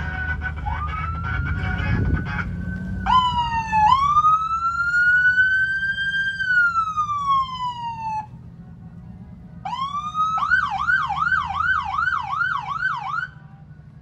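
Police-style siren fitted to a customised Hummer H2: a tone rises and holds, then a long wail climbs, peaks and falls away before cutting off; after a short gap it winds up again into a fast yelp of about seven quick rises and falls that stops suddenly near the end. A vehicle engine rumbles low underneath in the first few seconds.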